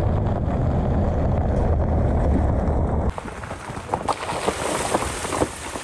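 Pickup truck driving on a gravel road with a steady low rumble; about three seconds in, it changes to the truck's tyre rolling through a muddy puddle, with hissing spray and repeated sharp splashes.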